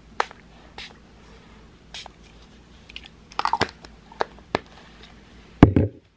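Scattered clicks and knocks of objects being handled in a small room, with a short cluster of them midway and a louder, deeper thump near the end.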